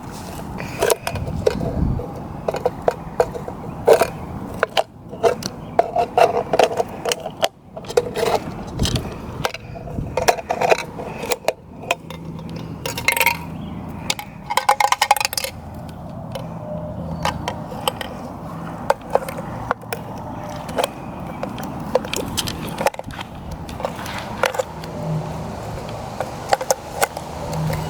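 Cutters working through the thin sheet metal of an empty spray paint can: irregular metallic clicks, snips and scraping as the can is cut and pried open.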